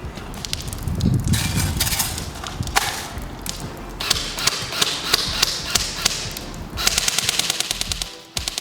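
Lancer Tactical Gen 2 M4 electric airsoft rifle (AEG) firing three bursts of rapid fully automatic shots. It is still working after being soaked in water.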